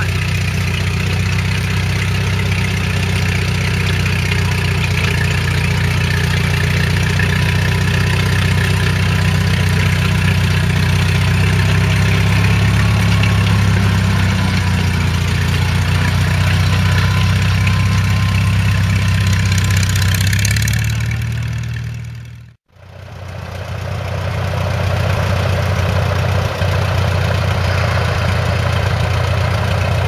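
Small crawler tractor's engine running steadily under load while pulling a plough. The sound fades out for a moment about three-quarters of the way through, then comes back at the same steady level.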